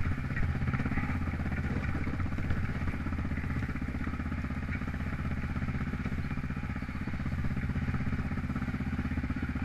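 Off-road vehicle engine idling steadily at an even pitch, with a couple of brief knocks early on.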